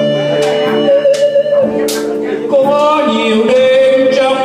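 Live electronic keyboard accompaniment playing a slow ballad in held notes, with a man's amplified singing voice, wavering with vibrato, entering about halfway through.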